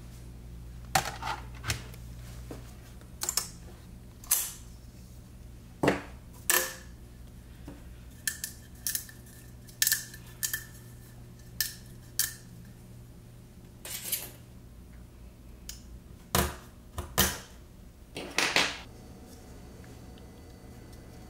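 Hard 3D-printed plastic lens parts clicking and knocking as they are handled and fitted together: a scattered, irregular series of short sharp clacks over a faint low hum.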